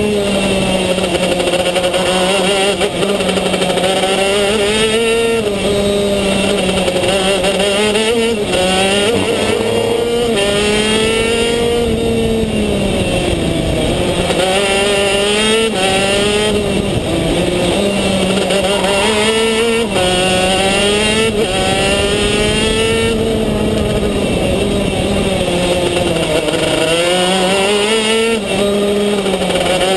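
Racing kart engine heard from a camera mounted on the kart at speed, its pitch repeatedly climbing as it accelerates and dropping as it slows for corners.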